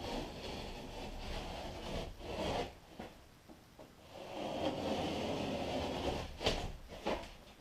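Drywall work: two long passes of scraping and rubbing against the sheetrock, then a few sharp knocks near the end.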